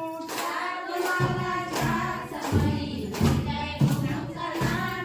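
A group singing a fugdi folk song together, with a regular beat of clap-like thuds about every two-thirds of a second from about a second in.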